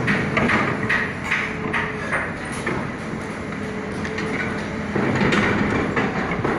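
Hitachi hydraulic excavator running: a steady engine hum with irregular metallic clicks and clanks, growing louder again about five seconds in.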